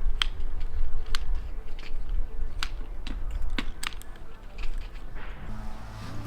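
Irregular light clicks and taps over a low steady rumble, with background music coming in near the end.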